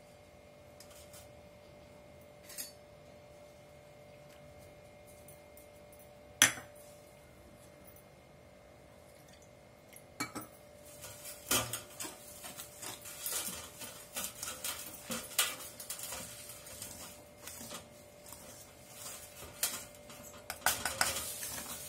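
A wire whisk stirring a flour and semolina batter mix in a stainless steel bowl: rapid metal clinking and scraping against the bowl, starting about halfway through after a quiet stretch broken by a couple of single sharp clinks.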